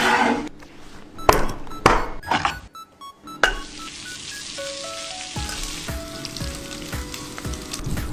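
A few sharp knocks, then, about three and a half seconds in, food going into a hot pan and sizzling steadily, over background music.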